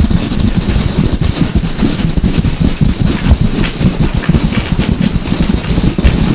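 A foley effect: a dense, continuous patter of irregular low thumps with crackle and hiss over them, steady in level throughout.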